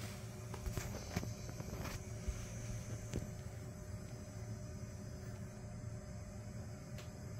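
ZWO EAF stepper focuser motor running, turning the Meade focuser shaft through an aluminium flexible shaft coupler: a faint steady hum, with a few light clicks in the first couple of seconds.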